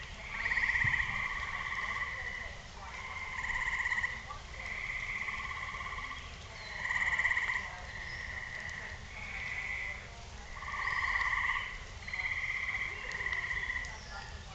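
A chorus of frogs calling in short, rapidly pulsed trills about a second long, one after another and overlapping, each high and bright with a weaker lower tone beneath it.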